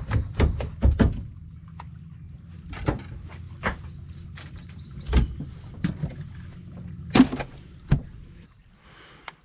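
Knocks and clunks on a fishing boat as a freshly caught crappie is unhooked and put away and the rod readied, over a low steady hum that stops about eight seconds in.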